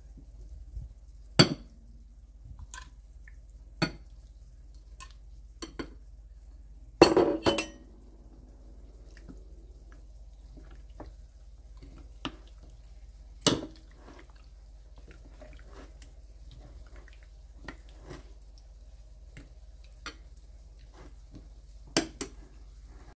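A metal fork clinking and tapping against a glass mixing bowl while turning chicken pieces in a thick marinade, in scattered single clinks with a quick cluster of several about seven seconds in.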